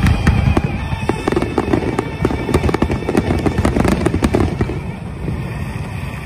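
Fireworks display: a dense run of rapid bangs and crackling from aerial shell bursts and low comets, thinning out and dropping in level about four and a half seconds in.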